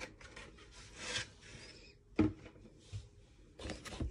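Cardboard packaging and its paper contents being handled: rubbing and brushing sounds, with a couple of short, soft knocks, the clearest a little after two seconds in.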